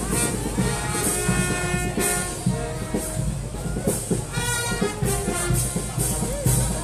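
Brass band music with a steady beat, horns holding notes over drums.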